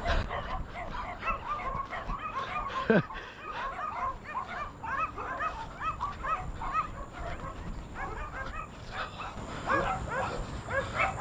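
Several dogs barking and yipping over one another, a dense run of short barks that goes on without a break.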